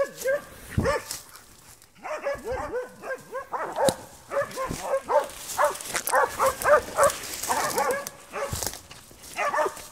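Spitz hunting dog barking in fast, high-pitched strings: a few barks at first, a short pause, then almost unbroken barking from about two seconds in. This is the baying a spitz gives at quarry it has found, here a badger.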